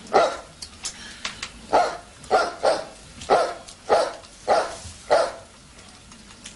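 A dog barking repeatedly, about eight short barks spaced half a second to a second apart, stopping about five seconds in.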